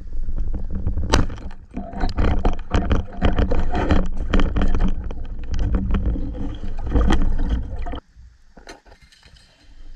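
Underwater audio of a spearfishing dive: a muffled rumble of water with crackling and clicking as the diver moves. About a second in there is a sharp snap, the band-powered speargun firing. About 8 s in the sound drops suddenly to a faint rumble.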